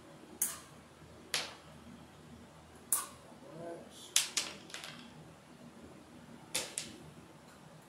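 Sharp snaps and clicks of hand tools cutting and stripping yellow 12-gauge NM electrical cable. There are about eight over several seconds, some in quick pairs, the loudest about four seconds in.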